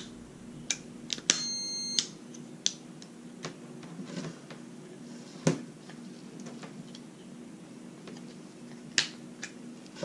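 A multimeter's continuity beep sounds once, for under a second, about a second in, as its probes touch the terminals of an old Lippert electric stabilizer rocker switch under test. The beep marks continuity across the switch contacts. Sharp scattered clicks and taps come from the probes and the plastic switch being handled, the loudest a little past halfway and again near the end.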